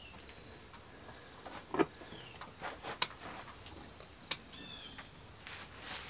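Serrated hand hoof trimmer snipping a sheep's hoof: three sharp clips, about two, three and four seconds in, the middle one loudest. Crickets chirp steadily throughout.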